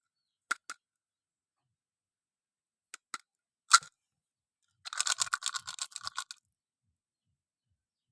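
Candy packaging being handled: a few sharp clicks and taps, then about a second and a half of rapid crinkling.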